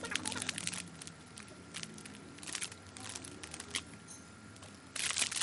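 Plastic packaging crinkling and crackling as a squishy toy is unwrapped, with louder, denser crinkling starting near the end.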